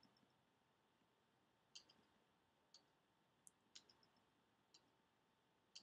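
Near silence with about six faint, sharp computer clicks at irregular intervals, from the pointing device used to pick a colour on screen, over a faint steady hum.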